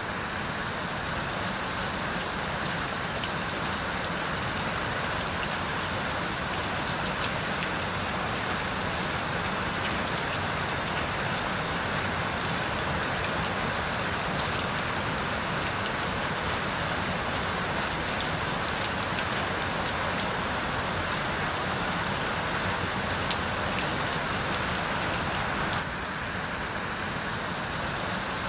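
Steady rain falling, a dense hiss dotted with the ticks of single drops. About 26 seconds in it becomes slightly quieter and changes in tone.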